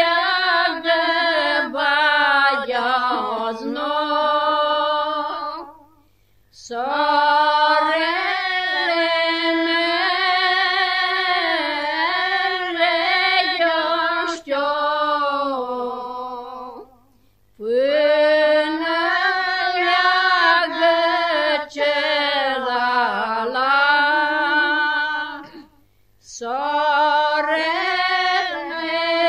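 A woman singing alone and unaccompanied a Romanian traditional harvest song (cântec de seceriș) from Sălaj, in long ornamented phrases that fall in pitch at their ends, with short breath pauses between them.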